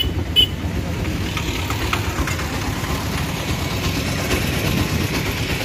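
Auto-rickshaw engine running at low speed with a steady low rumble as the three-wheeler pulls in to park, heard from inside the passenger cab. A short high beep sounds just after the start.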